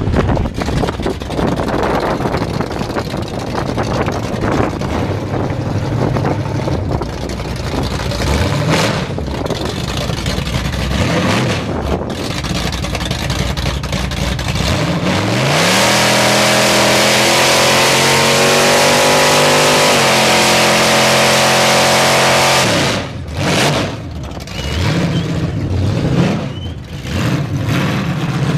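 A 1981 GMC pickup's engine revving in repeated bursts. About halfway through it climbs to high revs and is held there for about seven seconds, with a loud hiss of spinning rear tyres from a burnout, then drops back and revs again near the end.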